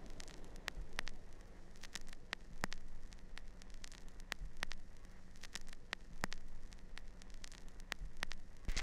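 Crackling static: a steady hiss and low hum, broken by irregular sharp pops a few times each second, with a louder burst of crackle near the end.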